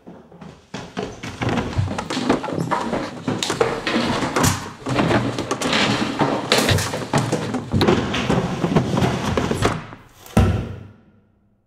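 A person tumbling down a wooden staircase: a long, rapid run of bumps and knocks against the steps, ending with one heavy thud about ten seconds in.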